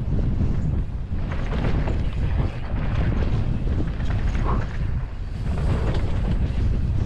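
Wind buffeting a GoPro microphone as a mountain bike rolls down a dry, rocky dirt trail, with a steady low rumble and frequent small knocks and rattles from the bike over rough ground.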